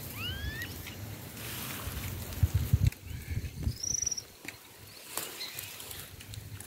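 Open-country ambience. A bird gives one rising whistled call right at the start, and a short high buzzy trill comes about four seconds in. Under them runs a low rumble on the microphone, with a few heavy thumps a little past two seconds in.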